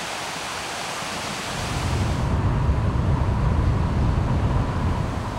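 Steady hiss of rain falling for the first couple of seconds, then a car driving on a wet road: a low, steady rumble of tyres and engine takes over.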